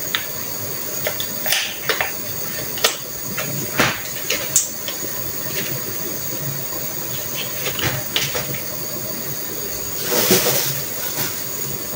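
Kitchen work sounds over a steady hiss: scattered clicks, light knocks and rustles as packets and dishes are handled, with a short flurry of handling noise about ten seconds in.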